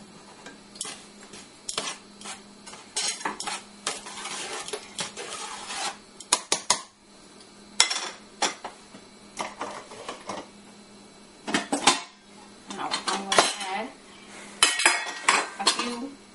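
Stainless steel tongs clinking and scraping against a steel cooking pot and a wire mesh strainer as potato chunks are dropped into a thick spice paste: a run of irregular metallic clinks and knocks. Near the end the lid of a steel spice box clatters as it is opened.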